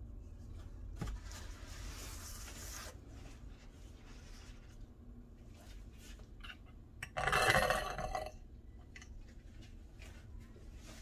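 Paint-pouring turntable spinning a wet canvas, with a low rumble and a click about a second in. About seven seconds in there is a louder scraping clatter lasting about a second.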